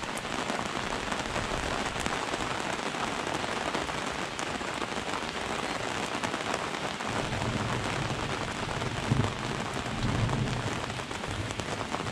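Steady rain pattering on the boat's canopy top and the lake. About seven seconds in, a low rumble joins the rain.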